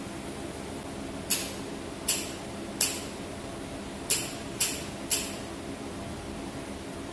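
Jewelry laser spot welder firing six sharp snaps, one per laser pulse on a fine chain, at uneven intervals over about four seconds, over the steady hum of the machine.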